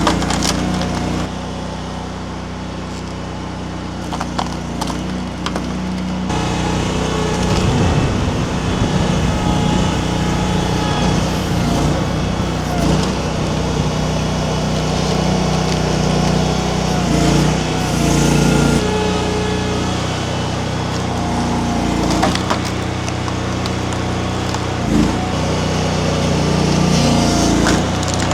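Mini skid steer's engine running steadily under hydraulic load, picking up about six seconds in, while its Eastonmade MS324 splitter attachment breaks down pecan rounds. Occasional sharp cracks and knocks of splitting wood come over the engine.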